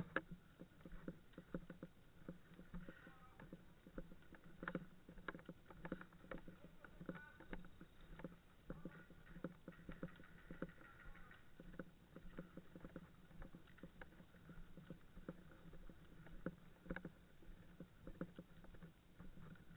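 Faint, irregular clicks and knocks, several a second, over a low steady hum: handling and movement noise heard close to the microphone.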